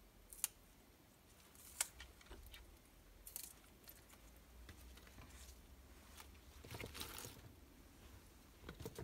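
Faint handling of water spinach (morning glory) stems: crisp snaps as the stems are pinched and broken by hand, two sharp ones in the first two seconds, with soft rustling of the leaves in a colander later on.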